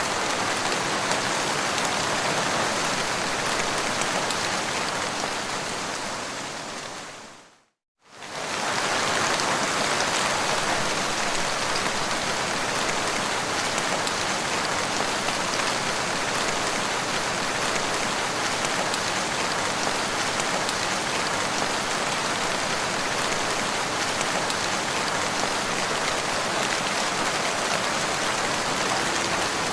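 Steady rain falling, an even hiss of drops striking the ground. About six seconds in it fades away to a moment of silence, then comes straight back.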